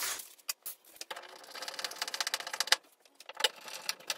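Light mechanical clicking of a hand screwdriver and screws as the mirror's metal mounting bracket is fastened to the wall. A fast, even run of small clicks comes about a second in and lasts under two seconds, followed by a few separate ticks.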